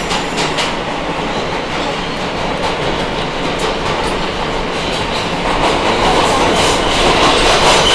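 New York City subway E train car running in the tunnel, heard from inside the car by the end doors: a steady rumble with the wheels clicking over rail joints. The sound grows louder about two-thirds of the way through.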